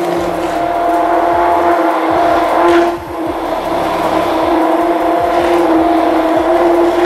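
Stick blender running in a plastic jug, whipping instant coffee and water into a thick foam, with a steady motor whine. It dips briefly about three seconds in, then carries on.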